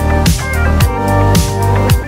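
Background music with a steady electronic beat: a deep kick drum about twice a second under held synth notes.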